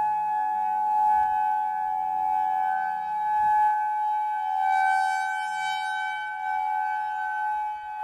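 Federal Signal 2001-130 and Modulator II outdoor warning sirens sounding the steady alert tone. The tone stays at one pitch while its loudness swells and fades every couple of seconds.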